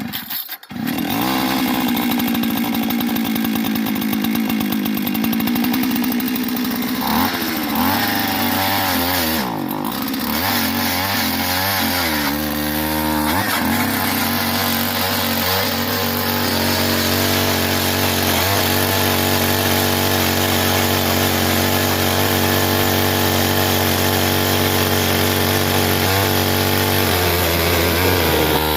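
Gas-powered ice auger running as it bores a hole through the lake ice, its small engine revving up and down several times.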